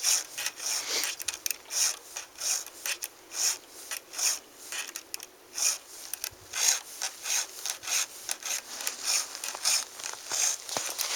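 Chainsaw file rasping across the chain's cutter teeth in repeated strokes, about two a second, as the chain is sharpened by hand.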